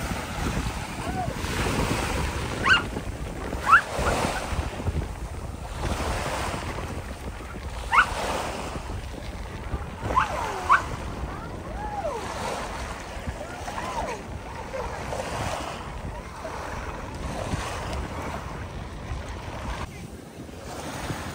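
Small waves breaking and washing up on a sandy shore, with wind buffeting the microphone. Several short, sharp high cries rise above the surf, loudest about 3, 4, 8 and 10 seconds in.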